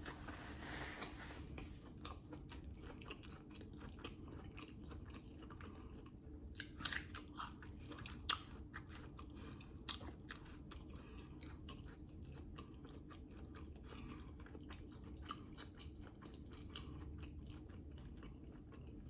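Close-up chewing and biting of a sausage dog topped with grinder salad: soft, wet mouth clicks throughout, with a few louder crunchy bites around the middle.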